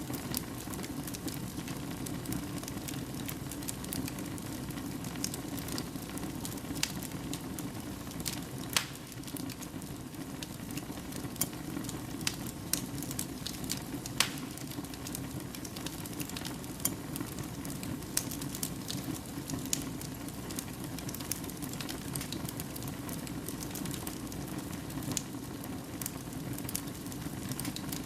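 Fire burning in a fireplace: a steady low rushing hiss with frequent sharp crackles and pops, a few of them louder.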